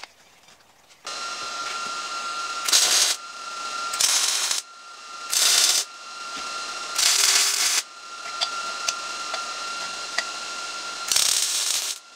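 Wire-feed welder arc crackling in five short bursts as it welds a steel plate onto a steel tube. A steady hiss with a faint whine runs beneath the bursts.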